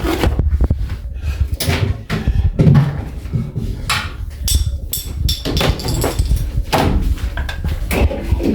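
Scattered knocks and bumps of things being handled, like a door being moved and shut, over a low rumble.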